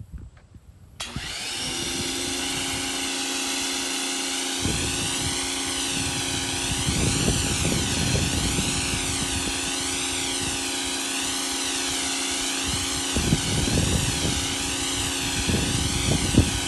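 Electric pressure washer starting about a second in and then running steadily under load, its motor and pump giving a constant whine, while water and soap spray out of the soap bottle attachment.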